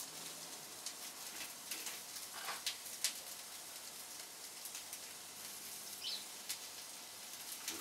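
Bell peppers and garlic sizzling in hot oil on a grill-top, a steady hiss with scattered pops and crackles.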